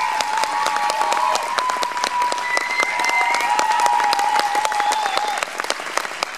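Audience applauding with many claps, with long high cheers and whoops held over the clapping.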